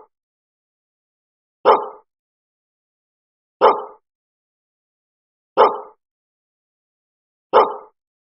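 A dog barking, one short bark about every two seconds: four identical barks with dead silence between, a single bark repeated in a loop.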